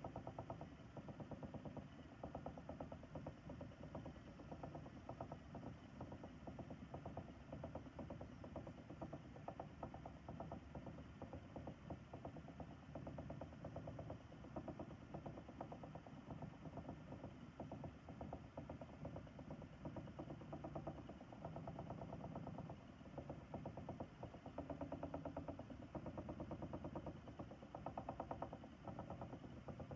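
Ashford e-Spinner electric spinning wheel running steadily: its small motor and whirling flyer give a quiet, even whir as yarn is spun onto the bobbin.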